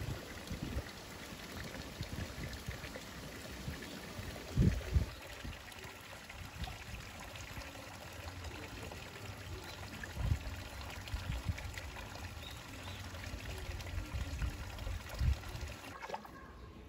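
Thin streams of water pouring from above into a hot-spring pool, splashing steadily, with a few short low thumps. The splashing drops away near the end.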